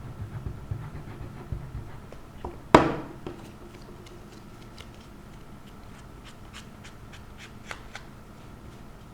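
Paper layers being handled and pressed together by hand during gluing: soft rustles and taps, then one loud sharp crackle about three seconds in, followed by scattered light ticks and rustles.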